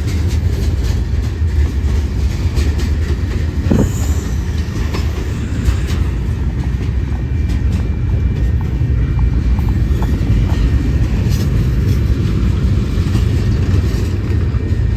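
Freight train cars rolling past: a steady, heavy rumble of steel wheels on rail, with scattered clicks and knocks as the wheels pass over the rail joints.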